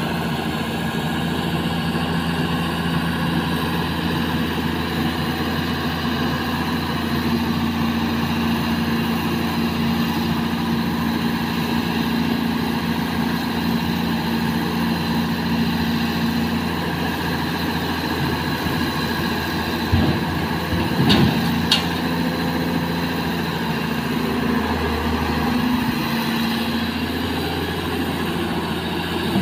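Kobelco SK200 hydraulic excavator's diesel engine running steadily as it works, loading sand into a dump truck, with a few knocks about two-thirds of the way through.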